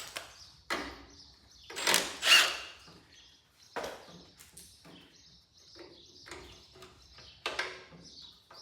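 Scattered clicks, knocks and rustles of hand tools and parts being handled while the starter is unbolted from a Cub Cadet 782 garden tractor engine, the loudest about two seconds in.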